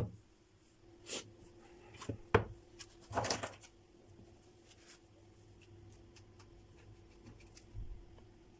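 A few short knocks and rustles of tools and a phone being handled on a repair bench in the first few seconds, then quiet room tone with a faint steady hum and a few light ticks.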